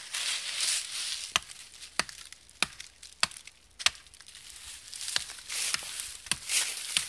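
Large fixed-blade knife, an ESEE-5, chopping into a small green tree trunk: a run of sharp, regular chops, nearly two a second, with dry leaves rustling underfoot between the strokes.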